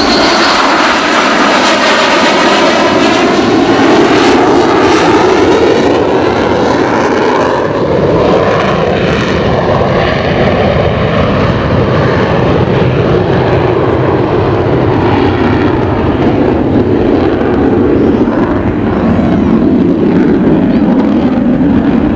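F-14B Tomcat's twin General Electric F110 turbofans in full afterburner during a simulated wave-off. The jet noise is loud and steady, with a sweeping change in tone as the aircraft passes and pulls away.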